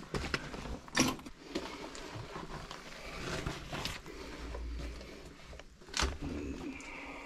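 Scuffing and rustling of a person moving through a cramped brick passage, with two sharp knocks, one about a second in and another about six seconds in.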